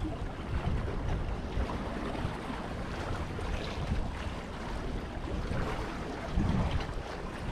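Outdoor wind buffeting the microphone in an uneven low rumble, with sea water washing. A stronger gust comes about six and a half seconds in.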